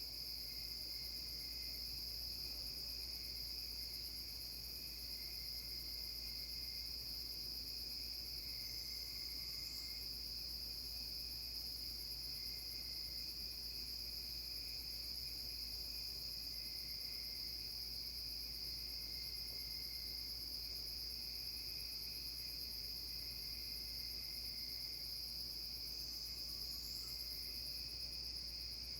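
Night insect chorus of crickets, a steady high-pitched trilling. Twice, about nine seconds in and again near the end, a faint short rising whistle sounds over it, the unidentified whistle heard in these woods at night.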